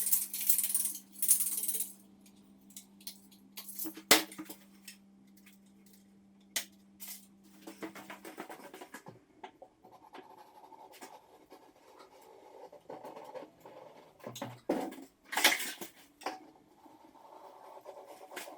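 Hand work on a door frame: short hissing bursts near the start and again about 15 seconds in, with scattered sharp clicks and knocks between them, the loudest knock about 4 seconds in. A faint steady hum runs under the first eight seconds or so.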